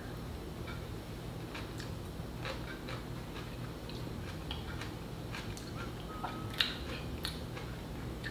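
Crunching clicks of a mouthful of crisp napa cabbage kimchi being chewed, with one sharper crunch after about six and a half seconds, over a low steady hum.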